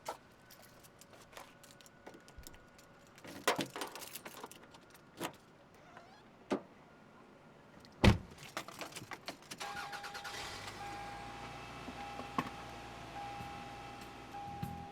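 Getting into a car: scattered clicks and keys jangling, a car door shutting with a thump about 8 seconds in, then the engine starting and running steadily while a dashboard warning chime repeats in evenly spaced tones of about a second each.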